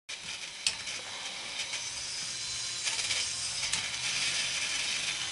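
K'nex ball machine's crankshaft-driven hand lift running: a steady whir of plastic gears and linkages over a faint motor hum, with scattered sharp clicks and rattles of the plastic parts, the loudest about two-thirds of a second in.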